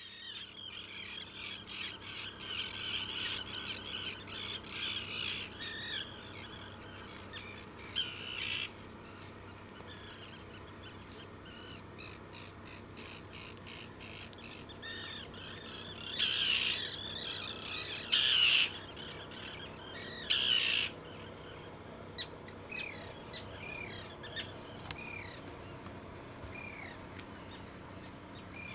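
Wild birds calling outdoors: a dense run of chirps for the first few seconds, then scattered short calls, with a few much louder, rough calls around the middle.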